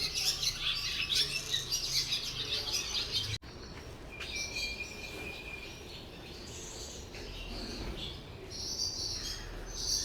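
Birds chirping and calling: a dense chorus of rapid high chirps for about three seconds, then an abrupt change to sparser calls with one steady high note held for a couple of seconds.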